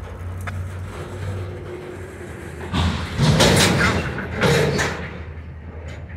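Diesel switching locomotive running with a steady low drone, then loud banging and clattering for about two seconds from roughly three seconds in, in two or three heavy blows: typical of freight cars coupling and their slack running in during switching.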